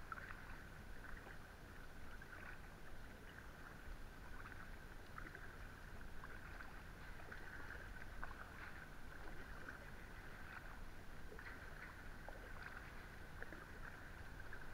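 Faint sounds of a kayak being paddled: the paddle blades dipping and dripping water, with small scattered splashes and ticks. Under it a steady low rumble and a steady high-pitched buzz run throughout.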